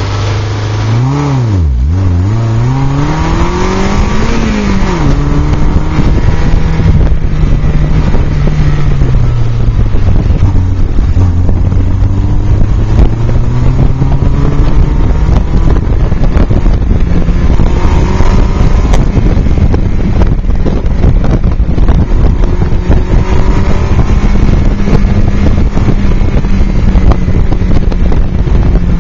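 A Toyota MR2 Spyder's mid-mounted 1.8-litre four-cylinder engine driven hard in an autocross run, heard loud from the open cockpit. It revs up and drops back quickly several times in the first few seconds, then pulls at steadier revs with slow rises and dips, with wind rushing over the open top.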